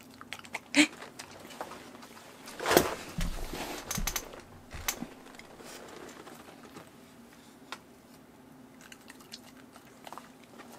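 A miniature schnauzer eating soft roasted sweet potato from a hand: quiet chewing and mouth clicks, the loudest a bit under three seconds in, over a faint steady hum.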